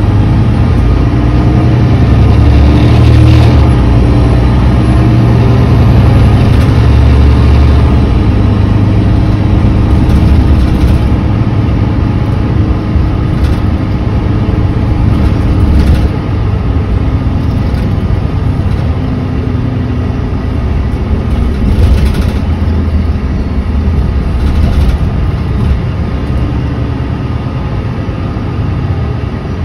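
Diesel engine of a Mercedes-Benz Citaro C2 G articulated bus, an OM936h straight-six with a Voith D864.6 gearbox, running as a steady low drone with a few short knocks. The owner says this engine no longer sounds healthy.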